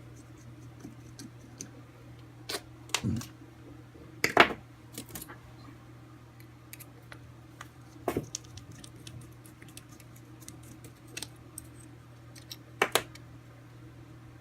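Scattered clicks and clinks of small hard parts and hand tools being handled while plates are taken off an RC crawler's chassis, the sharpest knock about four and a half seconds in, over a steady low hum.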